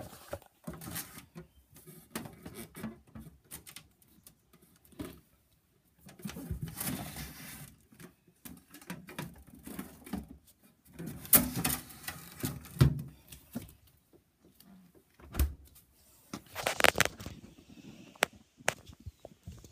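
Irregular rustling, clicking and knocking of things being handled at an open fridge and its plastic drawer, with a few louder knocks in the second half.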